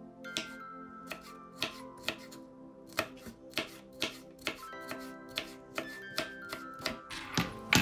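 Chef's knife chopping yellow bell pepper on a wooden cutting board: sharp knife strikes on the board, about two a second, the loudest near the end.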